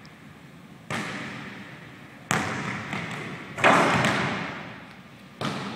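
Basketball bouncing on a hardwood gym floor, four hard bounces about a second and a half apart, each echoing through the large hall; the third, about halfway through, is the loudest.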